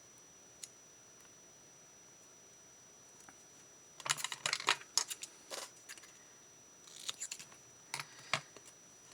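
Handling noise at a craft table: a single faint click just over half a second in, then from about four seconds in two bursts of quick clicks, taps and rustles as cardstock scraps and small tools are picked up and moved about.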